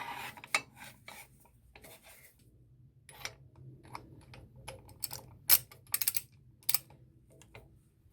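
Cast-iron drill press vise parts being handled and fitted together during reassembly: scattered metal clicks and clinks with short scrapes, the loudest clicks coming about five to seven seconds in.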